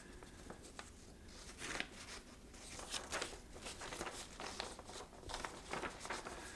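Faint, scattered rustling and crinkling of a folded sheet of paper being handled and slid against a foam puppet head.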